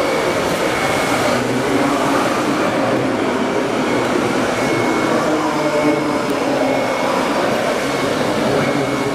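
Steady, dense din of a busy model-fair hall, with no single sound standing out.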